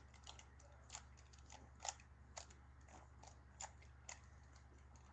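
Faint, irregular clicks of a Rubik's Cube's layers being twisted during a solve, about two a second, over a steady low hum.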